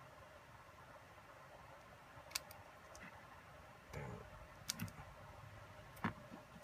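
A few sharp, separate clicks and a soft handling rustle as the small plastic and metal parts of a drone camera gimbal and its circuit board are handled and fitted by hand, over a quiet background.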